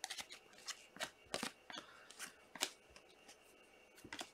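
Glossy Topps Chrome trading cards being leafed through by hand: a series of faint, irregular snaps and swishes as cards slide off the stack one at a time.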